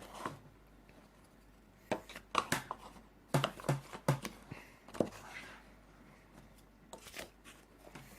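A spoon scraping and knocking against a mixing bowl as thick brownie batter is folded together, in scattered short strokes for a few seconds in the middle.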